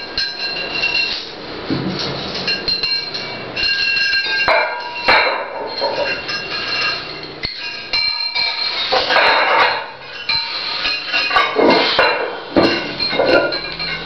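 Metal weight plates and chain clinking and clanking as they are handled, with repeated knocks that leave a ringing metallic tone.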